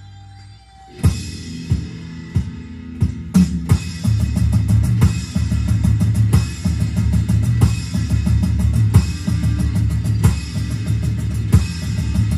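Hard-rock song with drums played on a Roland electronic drum kit. A held note dies away, then about a second in the drums come in with a few separate loud hits and cymbal crashes before settling into a fast, steady beat.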